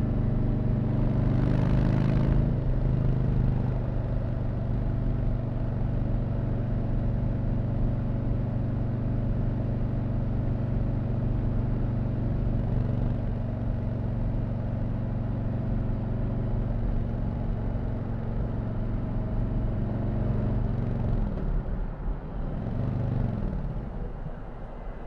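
Stock 2020 Harley-Davidson Low Rider S, its Milwaukee-Eight 114 V-twin running at a steady cruise through the stock exhaust. About 21 seconds in, the engine note falls, then briefly rises and falls once more before it drops away.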